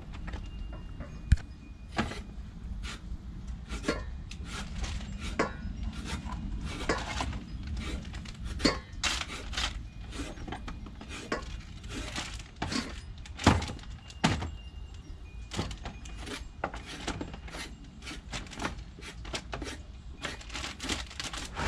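A knife chopping on a wooden cutting board as a red snapper is cut into portions: irregular knocks and thuds, the sharpest about a second in and again about halfway through.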